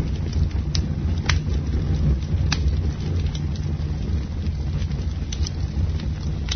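Campfire burning: a steady low rumble of flames with scattered sharp crackles and pops, the loudest about a second and two and a half seconds in.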